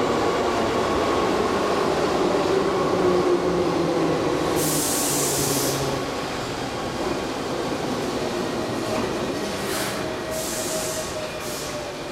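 Keihan 8000 series electric train pulling into an underground station platform. The wheels and running gear rumble and a hum falls in pitch as it slows. Short sharp hisses come about four and a half seconds in and again near the end.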